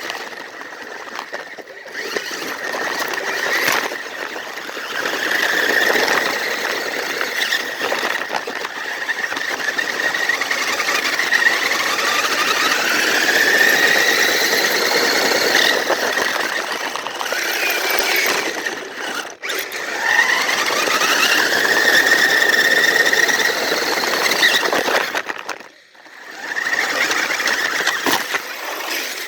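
Electric drive motors and gearing of radio-controlled toy vehicles whining as they drive. The pitch of the whine climbs as they speed up, twice over, and the sound drops out briefly twice.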